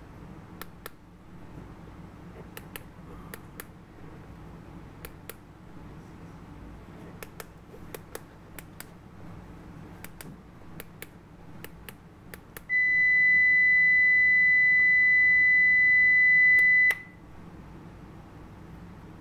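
Keypad buttons on a Satlink 6980 HD field meter clicking as they are pressed, then a single loud, steady beep from the meter lasting about four seconds, about two-thirds of the way in, which cuts off suddenly. The beep is the meter's beep tone sounding as the manual scan locks onto a channel.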